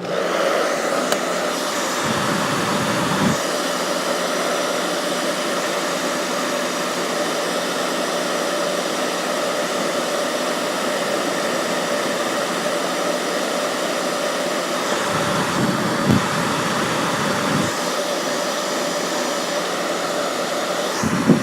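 Hair dryer blowing steadily, a loud, even rush of air with a steady hum running through it. A few low rumbles come in now and then.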